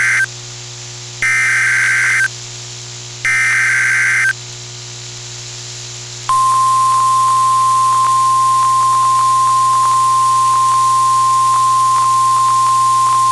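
Emergency Alert System broadcast on NOAA Weather Radio: harsh digital SAME header data bursts, about a second long and a second apart, with the tail of one and two full bursts, announcing a new alert. After a short pause, a steady single-pitch 1050 Hz warning alarm tone starts about six seconds in and holds, over faint radio hiss.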